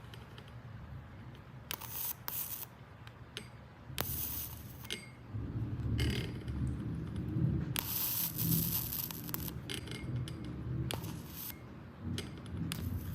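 Rechargeable electric arc lighter being handled and fired: button clicks and rubbing, with several short bursts of hissing crackle from the arc, the longest about eight seconds in.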